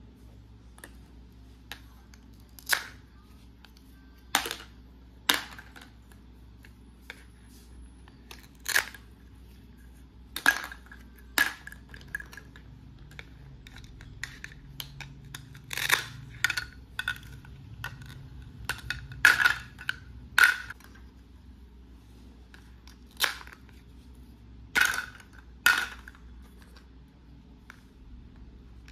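Plastic toy cutting set being handled: a plastic toy knife and toy vegetable pieces tapping and clacking on a plastic cutting board and being set into a plastic basket. The sound is sharp, short plastic clicks and knocks at irregular intervals, about fifteen loud ones.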